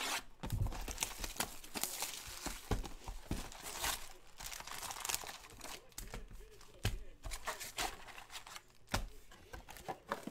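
A cardboard box of trading-card packs is torn open, then crinkles and rustles irregularly as the foil-wrapped packs are pulled out and stacked, with scattered sharp clicks.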